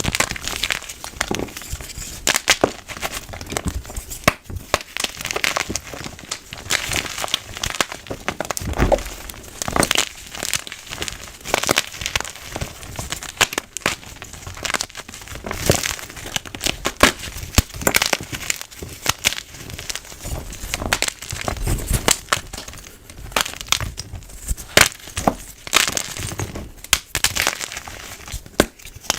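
Blocks of white gym chalk being crushed and crumbled by hand, a continuous crisp crunching and crackling made of many small irregular cracks.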